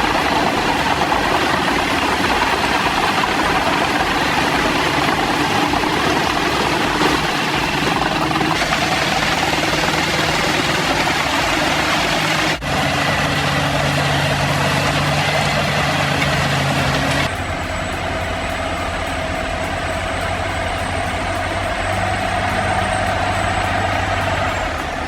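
Heavy machinery engine running steadily under load, with a dense mechanical din. The sound changes abruptly three times: about a third of the way in, near halfway, and about two-thirds through.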